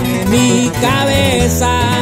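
Music: a Spanish-language Mexican regional song with plucked guitars, heard in a gap between sung lines.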